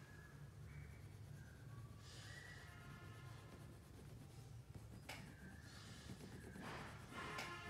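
Faint scratching of a wax crayon being rubbed across paper in short strokes, over a steady low hum.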